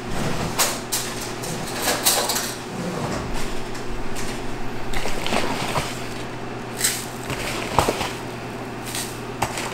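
Kitchen handling noises: scattered knocks and clatters of dishes and cupboards, then a thin plastic grocery bag rustling as a hand reaches into it near the end, over a steady low hum.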